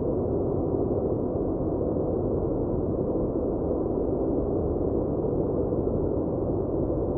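Steady white-noise track: an even, dull hiss weighted toward the low and middle range, with no highs.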